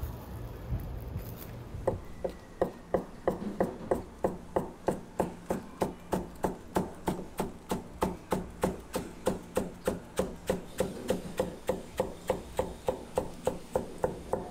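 Chinese cleaver chopping lettuce on a cutting board: a steady run of sharp knocks, about three a second, starting about two seconds in.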